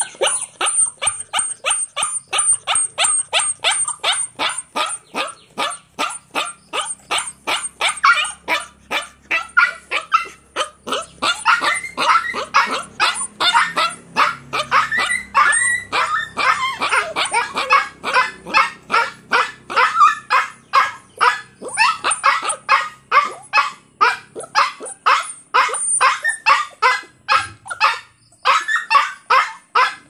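A dog yipping and barking in a fast, unbroken series of short calls, about three to four a second.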